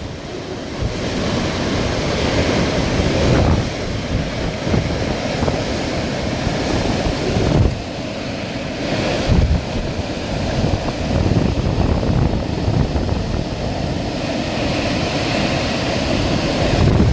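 Hurricane-force wind gusting, a loud rushing roar that swells and eases, with gusts buffeting the microphone.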